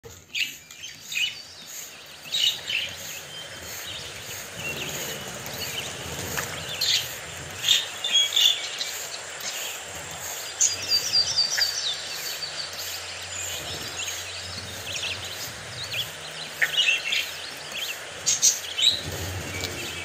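A group of budgerigars chirping and chattering, with short sharp chirps scattered throughout and a quick run of repeated chirps about halfway through.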